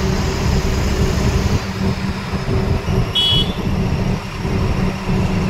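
Loaded goods truck driving on a highway, heard from the cab: a steady engine drone with road noise. A brief high-pitched beep sounds about three seconds in.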